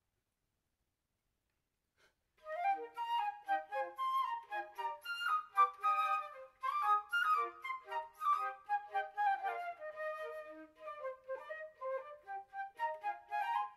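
A trio of flutes playing together in harmony, a busy passage of quick, short notes. The playing starts about two seconds in, after silence.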